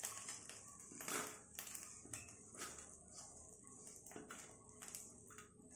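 Faint, irregular scraping and rustling of a silicone spatula pushing and lifting crisp fried tiny prawns across a non-stick kadai, in several separate strokes.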